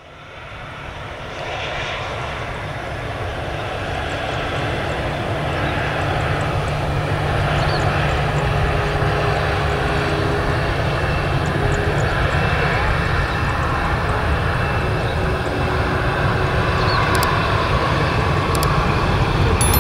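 Jet airliner's engines heard from beside the runway: a loud, steady roar that swells over the first few seconds and then holds.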